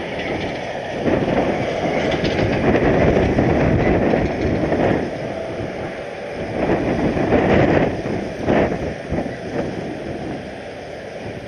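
Strong, gusty wind buffeting the microphone in loud surges that rise and fall every few seconds.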